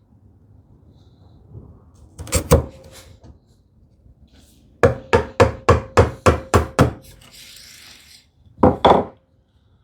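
Sharp knocks of hand-tool work on small wooden turn buttons being trimmed: a pair of knocks, then a quick run of about nine taps at roughly four a second with a faint ring, a brief scraping hiss, and two more knocks near the end.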